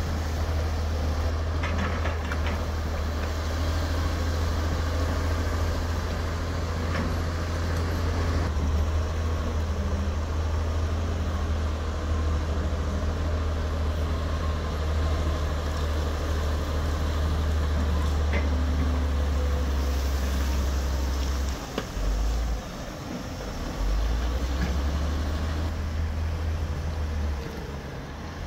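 Diesel engine of heavy earthmoving machinery running: a steady low rumble that drops away briefly about three-quarters through and again near the end.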